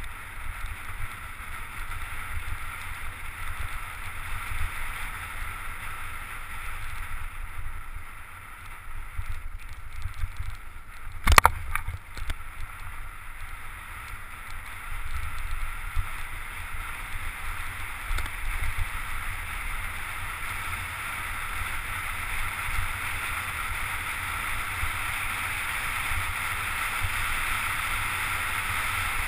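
Wind buffeting a GoPro's microphone over the rolling rumble and hiss of mountain-bike tyres on a dirt forest trail at speed. The noise grows louder in the second half. One sharp knock comes about eleven seconds in.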